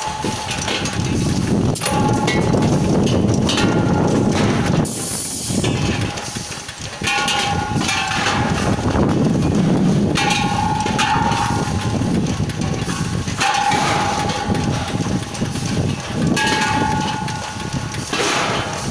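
Telescopic chain conveyor running with a steady rattle as steel LPG cylinders ride along it, while cylinders set on it by hand clank and ring out with a short metallic tone every couple of seconds.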